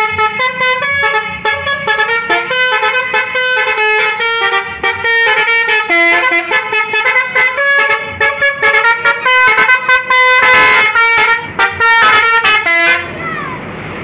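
Basuri telolet horn on a Jetbus 3+ tour bus playing a fast melody of short multi-tone horn notes, stopping shortly before the end.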